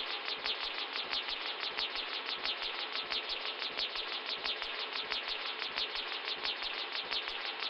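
Computer-generated electronic noise music: a rapid, even pulse of buzzing, hissing high noise, about five or six beats a second, over a bed of steady noise and faint low thumps.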